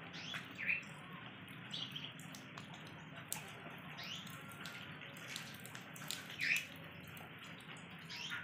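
Rainwater runoff gurgling over a rock into a shallow pool, with a steady trickle and many small drips and plinks, a few of them louder.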